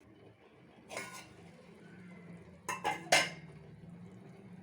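A metal utensil clinking against a cooking pot of simmering herbal decoction: one knock about a second in, then a quick run of three or four sharper clinks near the three-second mark, over a low steady hum.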